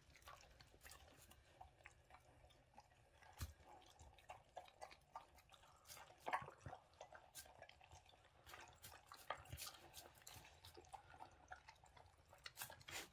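Two dogs eating wet food from stainless steel bowls: faint, irregular chewing with small clicks of food and mouths against the metal.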